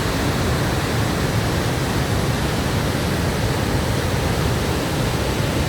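The Iguazú Falls: a large waterfall's water pouring and crashing in a steady, unbroken rush, strongest in the low range.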